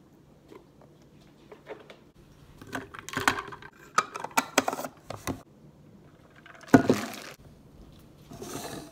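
Kitchen-counter handling noises: a run of clicks and knocks as a plastic screw lid is fitted onto a plastic mason-jar tumbler, then one loud knock of something set down on the counter about seven seconds in, and a short rustle of a wrapper near the end.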